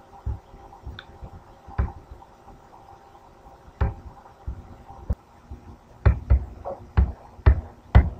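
Computer mouse clicking: about a dozen short, sharp clicks with a dull thud in each, a few spread out at first, then coming in quick succession over the last two seconds. A faint steady hum lies under them.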